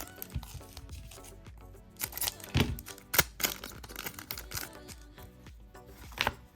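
Background music, with a few sharp crackling and tearing sounds of a foil trading-card pack being torn open and its cards handled. The loudest crackles come about two to three seconds in and again near the end.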